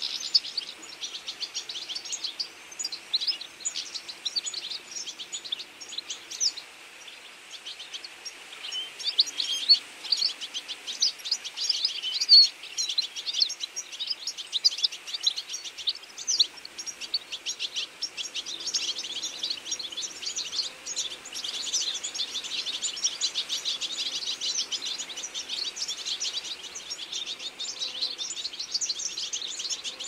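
A feeding flock of European goldfinches twittering: many short, high chirps overlapping one another, with a brief lull early on and busier chatter through the second half.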